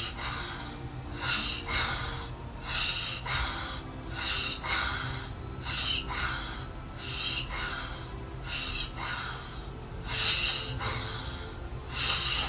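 A sleeping man snoring, with noisy snorting breaths coming irregularly, about one or two a second.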